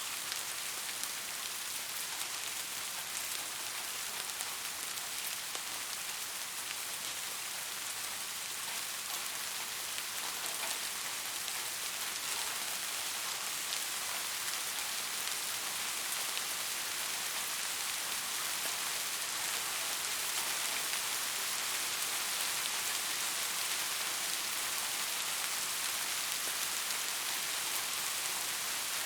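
Steady rain falling, a dense even hiss with a fine patter of drops.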